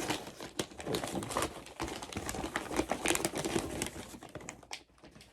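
Packaging crinkling and rustling as it is handled and opened, with many small clicks and taps, easing off near the end.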